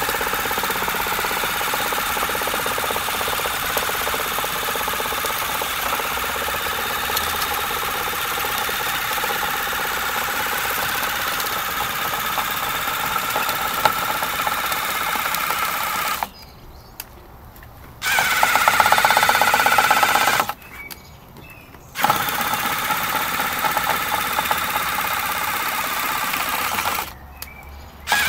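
iRobot Looj 330 gutter-cleaning robot running in a metal gutter, its drive and spinning auger making a steady motor whirr. In the second half the motors fall quiet three times for a second or two each, then start up again.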